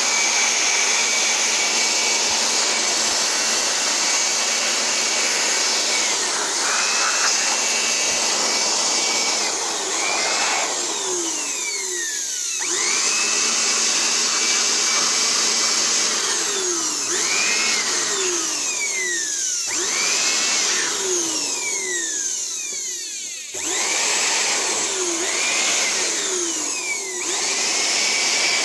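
Electric air blower running steadily, blowing dust out of the scanner's document feeder and off its sensors. Its whine and rush shift in pitch as the nozzle is moved about, and it eases off briefly three times.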